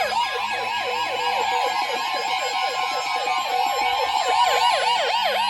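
Weather radio receiver sounding its siren alarm for a warning: a fast yelping tone that sweeps about four to five times a second, with other alarm tones layered over it and a slow falling tone near the end.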